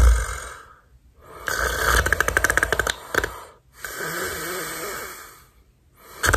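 A man fake-snoring through his open mouth, tongue held as for a 'k': a rattling snore, then a long breathy rush of air, with another rattling snore starting near the end.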